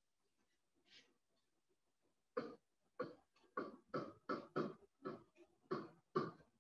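A quiet pause, then a series of short, faint scratchy strokes, about two to three a second, from a pen or stylus writing on a board or tablet.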